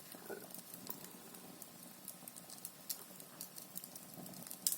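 Wood fire burning in a Russian stove: a faint, low steady hum with irregular crackles and pops.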